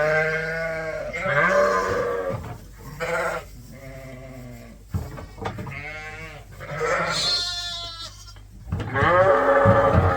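Sheep bleating, many wavering calls one after another and overlapping, some higher-pitched than others.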